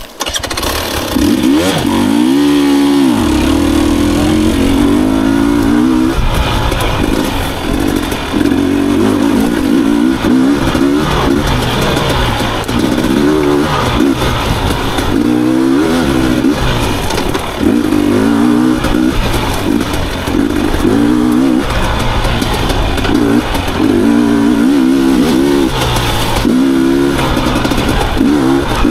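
Husqvarna TE250i fuel-injected 250 cc two-stroke enduro motorcycle being ridden, its engine revving up and down over and over as the throttle is worked.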